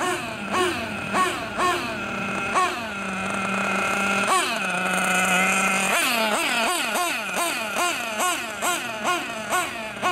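BG Engines Fusion X3 EX nitro engine in an RC buggy, being broken in, revving in short repeated throttle blips about two a second. A few seconds in it holds a steady pitch for a while as the buggy passes close, then goes back to quick blips.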